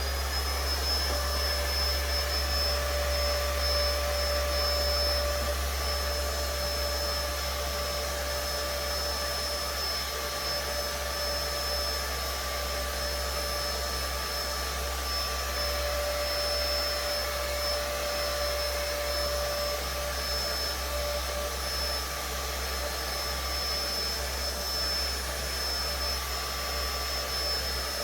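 Household vacuum cleaner running steadily: an even rush of air with a high motor whine. Its motor has only just spun up.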